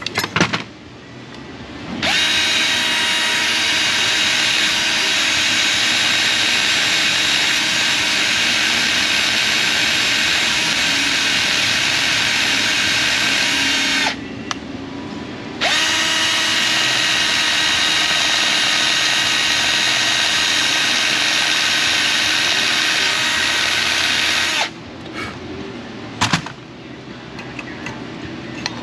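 Cordless drill spinning a small sanding drum against the metal of a brake pad to make a tight-fitting pad fit its caliper bracket: a steady whine with grinding, in two runs of about twelve and nine seconds with a short break between. A few metal clicks from parts being handled come before and after.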